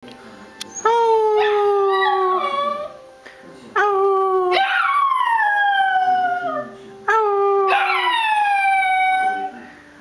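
Small black-and-tan dachshund-type dog howling three times, each howl starting abruptly and sliding down in pitch over two to three seconds.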